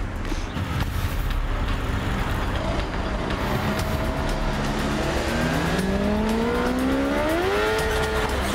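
Motorbike engine accelerating: its pitch rises steadily through the second half over constant street traffic noise.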